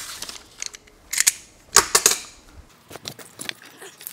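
Handling noise on a cutting mat: a few sharp clicks and knocks, loudest a little under two seconds in, as a plastic snap-off utility knife is set down and the paper template and workpiece are moved about.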